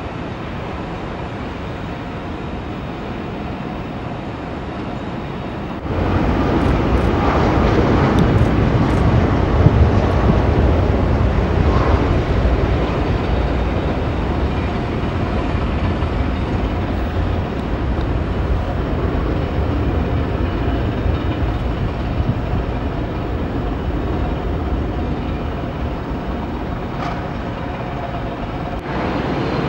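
Jet airliner engines heard at a distance as a steady rushing rumble, which jumps abruptly louder about six seconds in.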